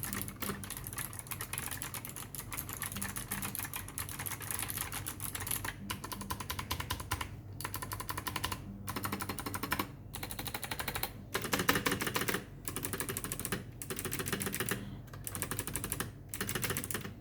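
Fast typing on a DareU EK520 Optical mechanical keyboard with clicky blue switches and Akko PBT keycaps: a dense run of key clicks, broken by several short pauses.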